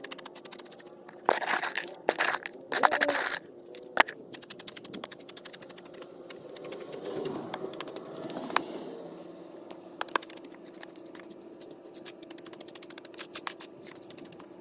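Crushed stone being scraped and packed under an air-conditioner condenser pad with a wooden stick: three loud gritty scrapes and crunches in the first few seconds, then a sharp knock and scattered small clicks of shifting stones. A faint steady hum runs underneath.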